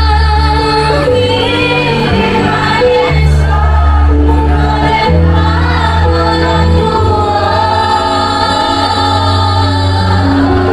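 A woman singing a song into a microphone over loud amplified music through a PA, with a deep bass line that changes note every second or two.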